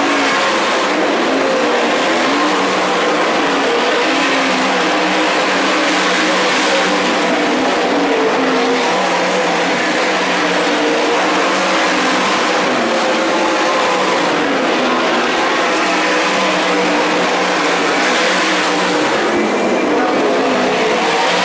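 Winged sprint cars' V8 engines running hard around the track, a continuous blend of engine notes swelling and falling as the cars lap.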